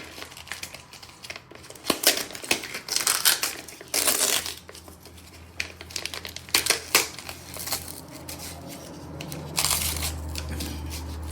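Plastic packaging of a moisture-absorber tub crinkling and tearing as it is opened, in irregular bursts with a few sharp clicks.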